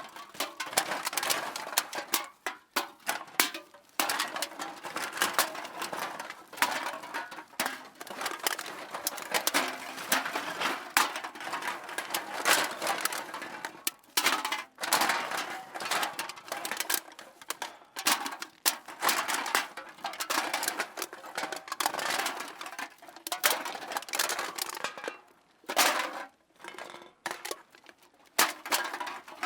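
Empty aluminium cans clattering and clinking against one another: a dense, continuous run of light metallic knocks and rattles, thinning to a few separate knocks near the end.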